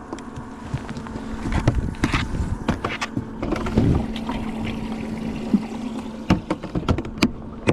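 Knocks and clatter of gear being handled in a jon boat, over a steady electric hum from a small motor on the boat.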